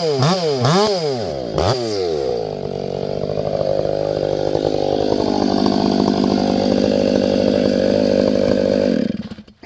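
Ported Stihl MS500i electronically fuel-injected chainsaw: the throttle is blipped rapidly up and down, then held wide open so the engine winds up and stays at high revs. The engine stops suddenly near the end.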